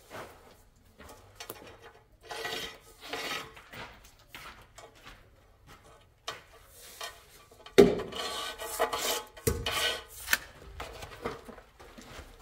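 Metal hand tools scraping and clinking, in short irregular strokes, with a sharp knock about eight seconds in and another about a second and a half later.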